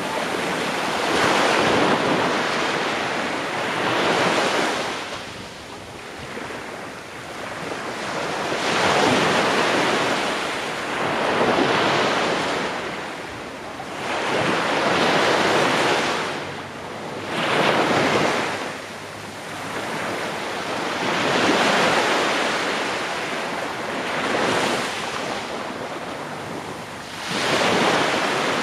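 Small waves breaking and washing up a sandy beach, the surf noise swelling and ebbing every few seconds, with wind on the microphone.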